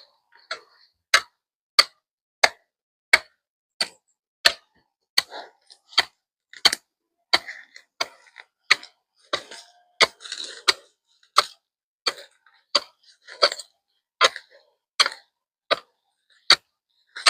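A hand tool chopping into hard ground again and again, one sharp knock about every two-thirds of a second in a steady rhythm.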